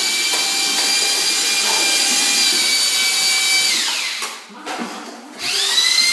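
Drywall screw gun motor whining at full speed, winding down and stopping about four seconds in, then spinning back up to speed after a pause of about a second.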